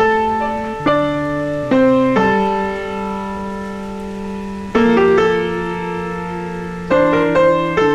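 Slow, gentle piano music: chords struck and held, a new one every second or two.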